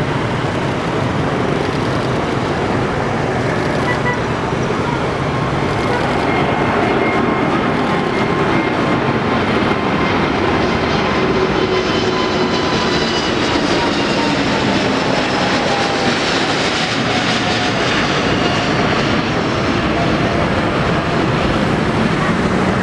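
Airbus A350's Rolls-Royce Trent XWB jet engines at take-off thrust as the airliner lifts off and climbs overhead: a steady, loud rushing noise with faint whining tones that slide slowly down in pitch as it passes.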